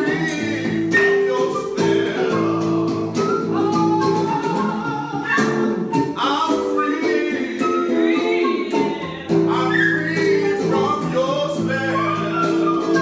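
A man singing a blues song, accompanied by an archtop electric guitar, with held chords under the voice.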